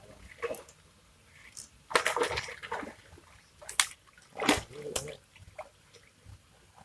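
Water splashing in a fishing pond: a burst of splashing about two seconds in, then two shorter splashes near the middle.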